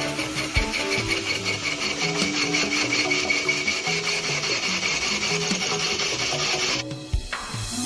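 Rhythmic rasping strokes, like filing or sanding, over background music; the rasping cuts off suddenly near the end.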